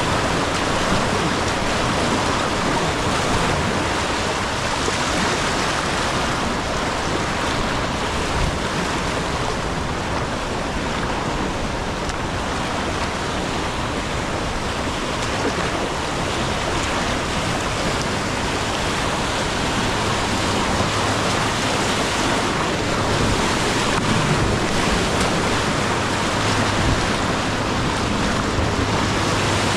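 Steady rush of river water around a whitewater kayak, with wind noise on the microphone.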